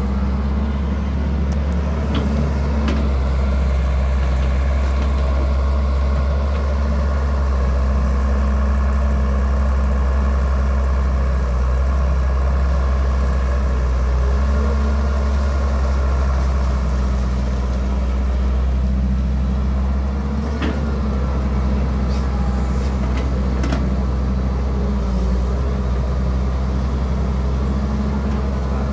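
HD 900 V crawler excavator's diesel engine running steadily as it digs riverbank mud, with a few short sharp knocks along the way.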